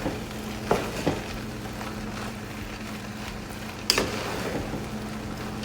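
Seasoned food being stirred with a utensil in a cooking pot: a steady hiss under a few sharp clicks and knocks of the utensil against the pot, the loudest about four seconds in, over a low steady hum.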